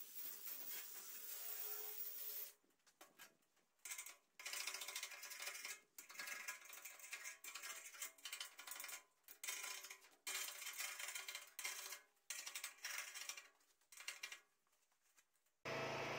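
Background music that breaks off into short silent gaps several times, then a steady electrical hum near the end.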